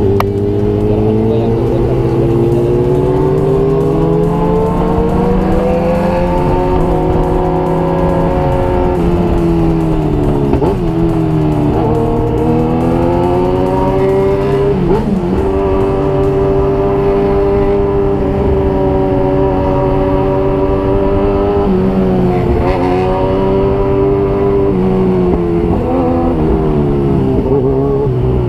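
Motorcycle engine running at low to moderate revs while riding in traffic, heard from the rider's seat. Its pitch rises and falls slowly with the throttle, with brief sharp drops and recoveries about ten, fifteen, twenty-three and twenty-seven seconds in, like throttle closing and gear changes.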